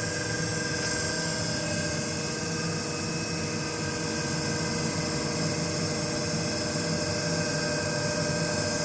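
FFEI Alento violet CTP platesetter running with a steady mechanical hum and a constant high hiss while a plate is loaded against the stopper pin.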